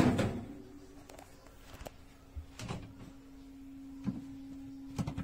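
Dishwasher being handled: a loud clatter right at the start, then a few separate sharp clicks and knocks, like its door or a cabinet being opened and shut, over a steady low hum.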